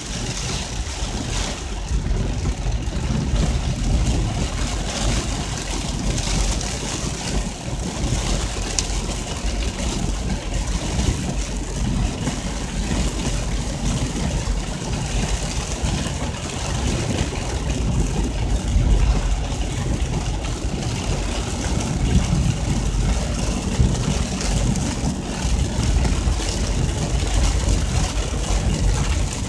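Heavy storm rain pelting a car's roof and windows, over the low, steady sound of the car's engine idling.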